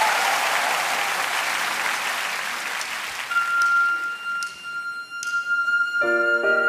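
Studio audience applause dying away over about three seconds. Then a ballad's instrumental intro begins: a single high note held steady, a few light high strikes, and soft chords coming in near the end.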